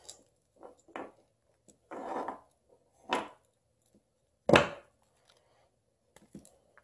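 A pocket knife cutting and scraping insulation off a small wire of an extension cord: a handful of short scrapes and clicks, the sharpest and loudest about four and a half seconds in.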